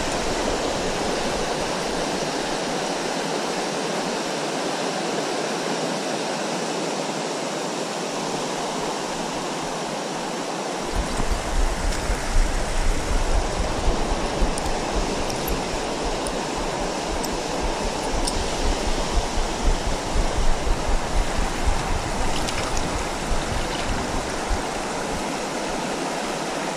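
Creek water rushing steadily around the wading angler, a dense, even hiss. About eleven seconds in, an uneven low rumble joins it for most of the rest.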